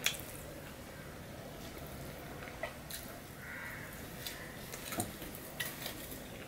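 Fingers mixing rice and curry on a stainless steel plate: soft, quiet squishing with a few light clicks, one every second or so.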